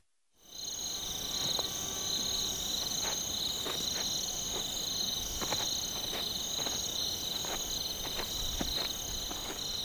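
A chorus of crickets trilling steadily at night, with faint scattered clicks throughout. It fades in about half a second in.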